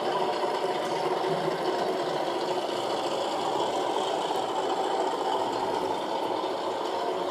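DCC sound decoder in a model Class 37 diesel locomotive playing a steady diesel engine sound through its small onboard speaker, with a light rattle as the model runs on the track.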